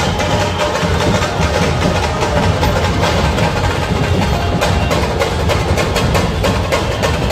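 Loud, fast drumming with a dense, unbroken clatter of strokes, the kind of percussion band that plays in a street procession.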